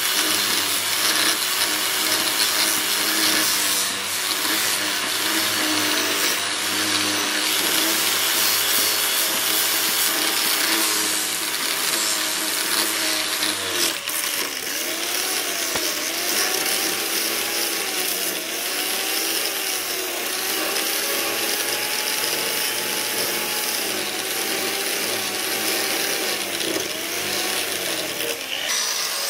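Handheld angle grinder grinding a steel cleaver blade: a steady motor whine under a loud, harsh grinding hiss. About halfway through, the motor's pitch starts dipping and recovering again and again as the disc bears harder and lighter on the steel.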